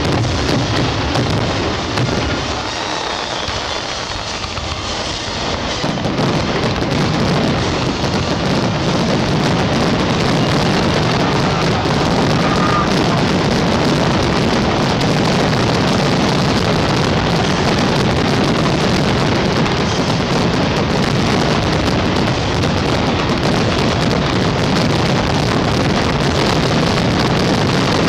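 Fireworks display: a barrage of aerial shells bursting and crackling so close together that the bangs run into one continuous din. The barrage is a little thinner for a few seconds early on, then unbroken.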